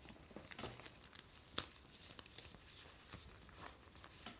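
Sticker sheets being handled: light paper rustling with scattered small clicks, one sharper click about a second and a half in.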